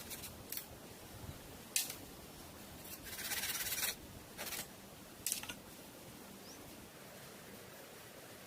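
A few short scraping strokes, with one longer stroke about three seconds in, over a faint steady background.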